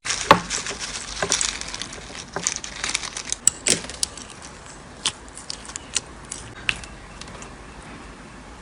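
Slime being squished and played with, giving a scatter of small crackling pops and clicks that come thick at first and thin out toward the end.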